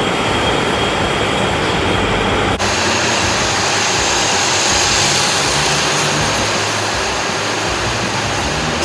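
Loud, steady running noise of production machinery in a welding-electrode factory. Its character changes abruptly about two and a half seconds in, turning hissier.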